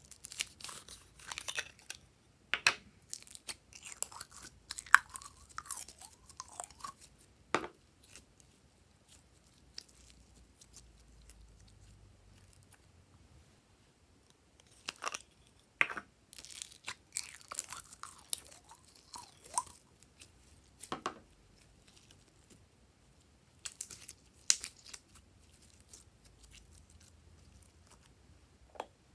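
Glossy slime being squished, stretched and folded by hand: sticky clicks, crackles and wet squelches in bursts, with quieter pauses between them.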